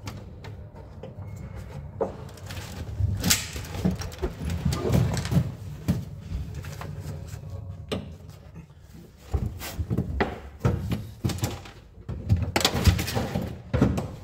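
Irregular knocks, clunks and rustling of a wiring loom being handled and pushed along the inside of a stripped car's roof and door pillar. The handling gets louder about three seconds in and again near the end.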